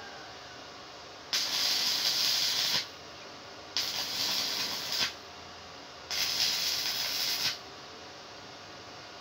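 Stick (arc) welding a steel pipe handle onto a steel hoe blade: three short welds of the arc hissing, each about a second and a half, with short pauses between.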